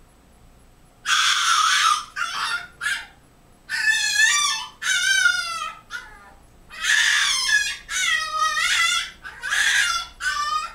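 Seven-week-old French bulldog puppy screaming and crying in a rapid series of shrill, wavering cries, starting about a second in. This is separation distress: he panics when his people are out of sight.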